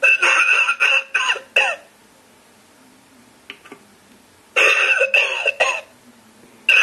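Novelty coughing ashtray playing its recorded cough through a small built-in speaker: a fit of about five or six coughs, a pause of nearly three seconds, then the same cough fit again, with a third starting right at the end.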